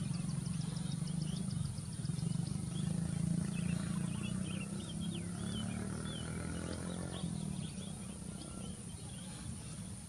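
Birds chirping in short high notes over a steady low rumble, with a quick run of ticking notes in the first two seconds. The rumble eases after about seven seconds.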